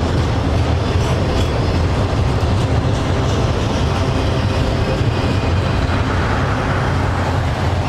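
Tail end of a double-stack intermodal container train rolling past on the rails, steel wheels on track under the last well cars, over a steady low rumble that holds its level throughout.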